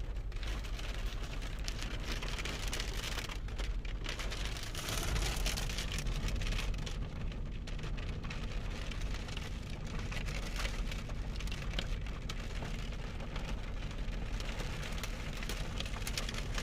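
Strong gusting wind, up to 65 mph, blowing hard and buffeting the microphone with a deep rumble and a steady hiss. A stronger gust swells about five seconds in.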